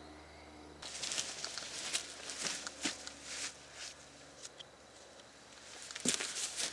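Light, irregular clicks and rustles of movement close to the microphone, starting about a second in, easing off, then picking up again near the end. No shots are fired.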